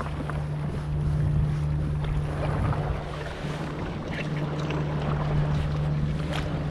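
A small boat's motor running with a steady low hum that dips briefly about halfway through, under wind on the microphone and water noise.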